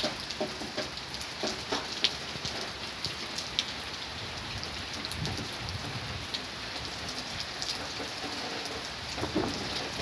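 Moderate rain falling steadily, with many close drops ticking on nearby surfaces, and a low rumble of distant thunder about halfway through.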